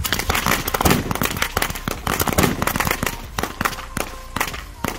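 Rapid, overlapping gunfire from a line of shooters firing lever-action rifles: dense shots for the first few seconds, then thinning out to scattered shots. Background music comes in near the end.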